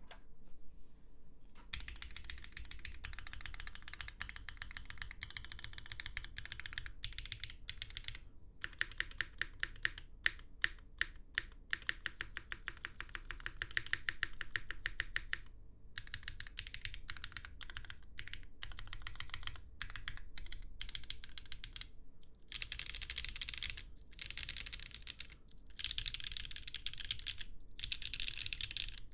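Typing on a Qneko 60% custom mechanical keyboard with lubed, broken-in Cherry MX Red linear switches, an aluminium plate, an o-ring gasket mount and GMK Hammerhead Dark keycaps. A fast, continuous run of key presses starts about two seconds in, with a few short pauses and some louder single strokes near the middle.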